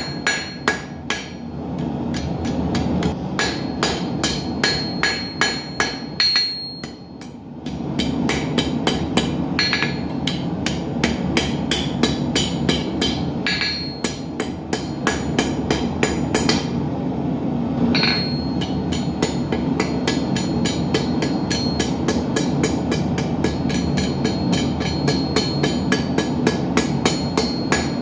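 Blacksmith's hammer beating steel on an anvil in quick, even blows, about three a second, each with a short metallic ring, while forging arrowheads. The hammering pauses briefly about seven seconds in, over a steady low rumble.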